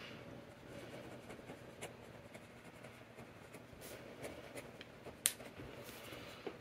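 Faint scratching of a Kaweco Sport fountain pen's gold-toned double broad nib writing on paper; the nib has a little bit of feedback. One sharp click a little after five seconds in.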